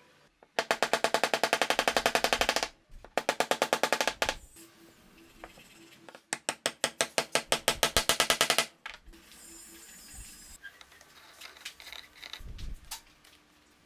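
A workshop tool clattering in three bursts of rapid, evenly spaced impacts, about eight a second, each burst lasting one to two and a half seconds. Fainter scattered clicks and a low thump follow near the end.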